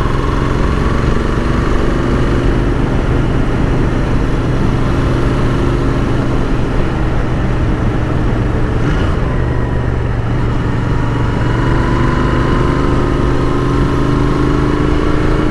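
Royal Enfield Continental GT 650's parallel-twin engine running under way while being ridden, heard over wind noise. The engine note dips briefly about nine seconds in, then rises steadily near the end as the bike accelerates.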